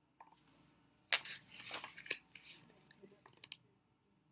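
A paperback picture book's page being turned: paper rustling with a few soft clicks and taps, starting about a second in.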